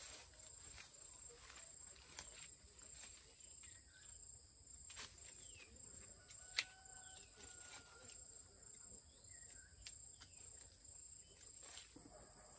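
Quiet rural outdoor ambience: a steady high insect whine that stops near the end, a few short bird chirps, and scattered light clicks, with one sharp click about six and a half seconds in.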